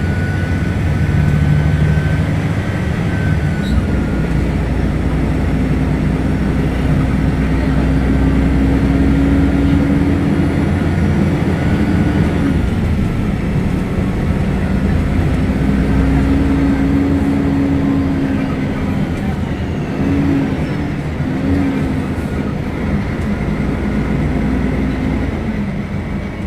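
Diesel engine of a Mercedes-Benz O500UDA articulated bus running under way. It pulls hard, with a humming tone, through the first half, eases off near the middle, pulls again for a few seconds, then settles lower toward the end.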